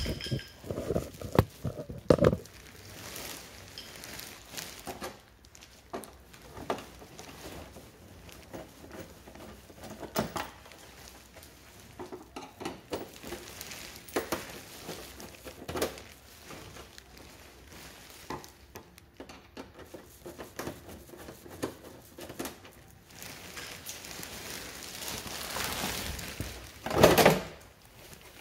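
Scattered clicks and knocks of a screwdriver working on the plastic rear body panel of a Jonway 125cc scooter, with a louder scrape near the end as the panel comes off the frame.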